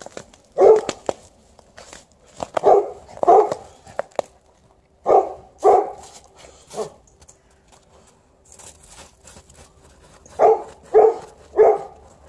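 A dog barking: about nine short barks in bursts of one to three, with pauses of a second or more between the bursts.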